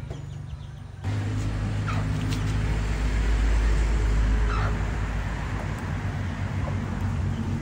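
A low engine-like rumble with a steady hum starts about a second in, swells through the middle and eases off toward the end. A few short high animal calls sound over it.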